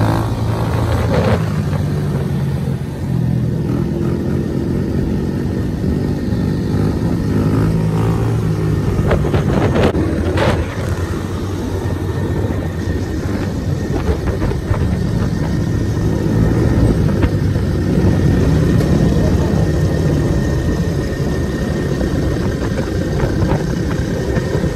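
Several mini motorcycles running together in a group ride, their small engines revving as the riders pull wheelies, so the engine pitch keeps rising and falling.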